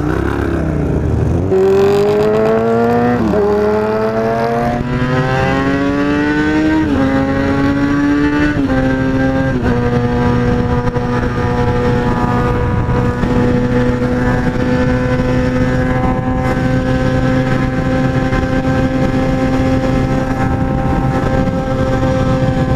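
Motorcycle engine pulling hard and climbing in pitch, dropping back at several quick upshifts over the first ten seconds or so, then running at a steady cruising speed.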